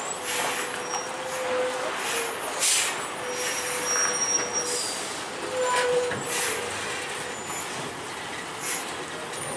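Heavy semi-trailer truck crawling through a tight hairpin turn: a squeal from the trailer's running gear, on and off, with several short hisses of the air brakes.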